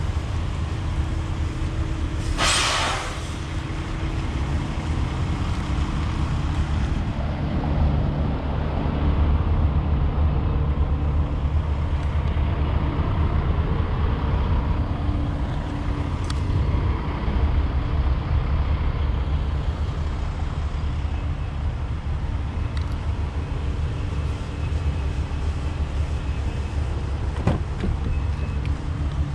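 Steady low rumble of vehicle engines with a steady hum, and a short hiss about two and a half seconds in.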